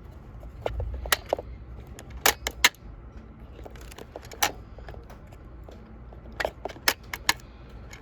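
Irregular sharp plastic clicks from a dentist-game toy being handled, a quick run of three a couple of seconds in and another run near the end.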